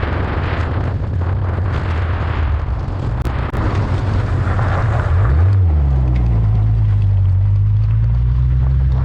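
Ford Laser's four-cylinder engine pulling on the road, with wind rushing over the open-top car. About five seconds in the engine note drops and climbs again, a gear change, then holds steady.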